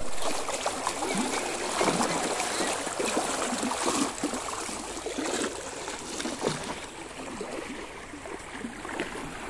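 Muddy floodwater from heavy rain rushing and churning as it pours over a concrete edge, a steady gushing rush with small splashes, a little quieter in the second half.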